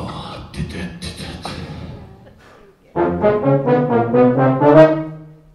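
Brass ensemble plays a short closing phrase of quick chords, about four a second, ending on a held low note that dies away. Before it, a few seconds of quieter, noisy sound with clicks into the microphone.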